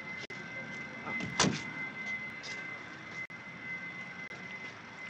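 A car door shutting with one sharp knock about a second and a half in, over steady outdoor background noise and a constant high-pitched hum on the soundtrack.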